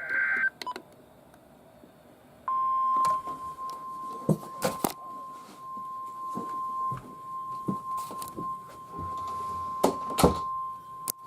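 NOAA Weather Radio receiver sounding a new alert. The last of the warbling SAME digital header bursts ends about half a second in. After a short pause, the steady 1050 Hz warning alarm tone starts and holds for about nine seconds. Several sharp clicks come through the tone, played through a guitar amplifier in a small room.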